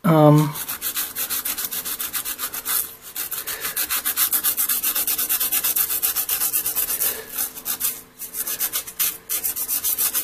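A small stiff brush scrubbing back and forth over a freshly milled copper-clad circuit board, brushing away the milling dust, in fast strokes of about five or six a second with short breaks.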